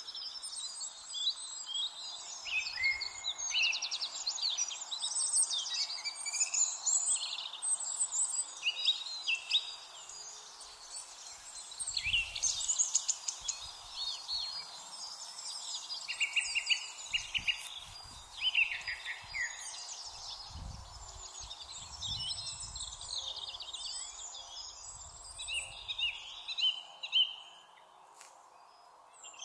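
Evening chorus of songbirds, among them a song thrush: many quick, high-pitched phrases overlapping continuously, with a steady hiss beneath and a few brief low rumbles.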